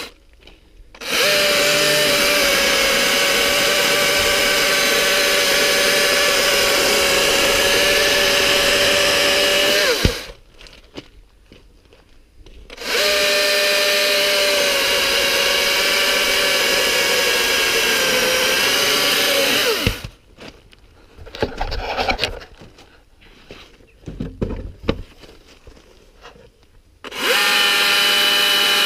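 Husqvarna 120i battery chainsaw running as it cuts through small logs: a steady electric whine in two long runs of about nine and seven seconds, its pitch sagging slightly under load. A few knocks come in the pause between the second and third runs, and the saw starts again near the end.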